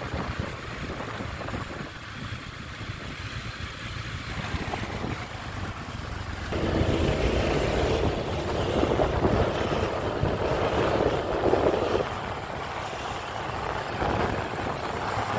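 An engine running over a low rumble. It grows louder a little before the middle and eases back about five seconds later.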